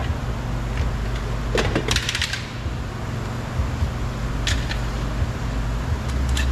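Hand tools and hardware clicking and clattering against the door. A quick run of small metallic clicks comes about two seconds in, and single clicks follow later, over a steady low rumble.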